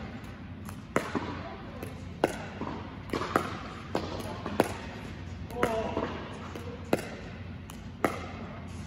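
Pickleball paddles hitting a plastic ball in a slow backhand dink rally: a sharp pop about every second, with softer bounces in between, echoing in a large indoor hall.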